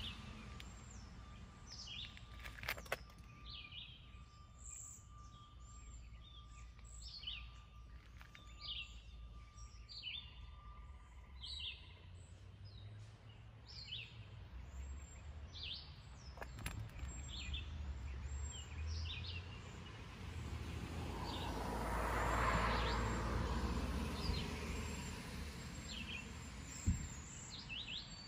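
Songbirds chirping over and over against a low steady rumble of outdoor background noise. About two-thirds of the way through, a broad rush of noise swells and fades over several seconds.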